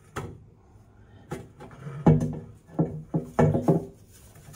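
Steel oil pan of a Detroit Diesel Series 60 engine knocking and ringing against the engine and jack as it is raised into place on a floor jack: a string of sharp metallic clanks, each with a brief ring, loudest in the second half.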